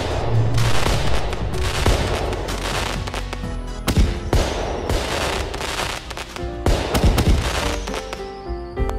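Fireworks going off, a sharp bang followed by a second or so of crackling, repeated several times, over background music.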